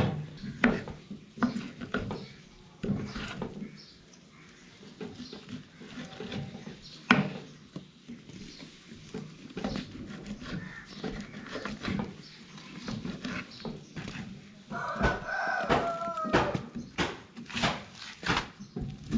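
Knife chopping beef on a cutting board, with irregular sharp knocks. A rooster crows once, about fifteen seconds in.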